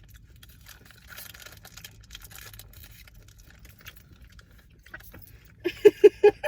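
Faint crinkling and small crunches from snack packaging being handled while a snack is eaten. Near the end a voice gives four quick, loud pitched sounds in a row.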